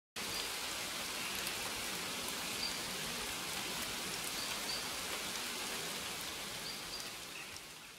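Steady rain hiss with scattered fine drop ticks and a few faint short high chirps, fading out near the end.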